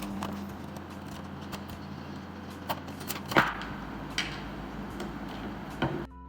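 Scattered clicks and knocks of hands working on a vending machine's goods tray, unplugging a spiral-slot motor's cable and handling the motor, over a steady low hum. The loudest knock comes about three and a half seconds in.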